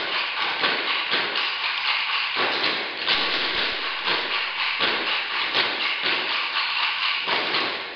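Dancers' sticks striking the floor in a fast, dense clatter of many overlapping taps.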